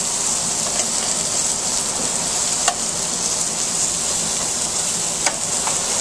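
Brussels sprouts and pancetta sizzling steadily in a hot aluminium sauté pan over a gas flame as finger potatoes are added with metal tongs, with a few sharp clicks of the tongs against the metal, the clearest a little before the middle and near the end.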